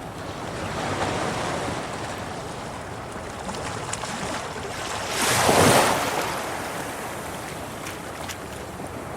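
Sea waves washing against rocks as the tide rises, a steady wash of surf with a small swell about a second in and one larger wave breaking loudly about halfway through, then draining back.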